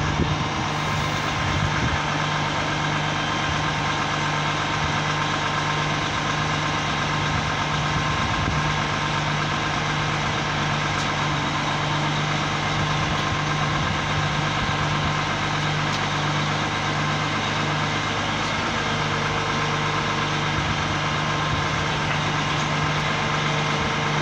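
Crane truck's diesel engine running at a steady, unchanging pitch, powering the hydraulic crane while it holds a motor yacht.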